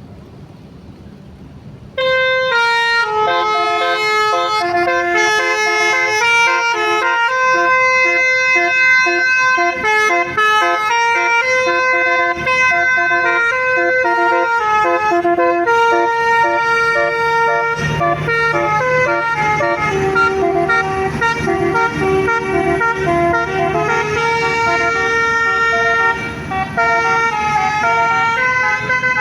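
Basuri telolet bus horn, a multi-trumpet air horn, playing a tune of stepping tones. It starts suddenly about two seconds in and keeps playing, with a low hum underneath in the second half.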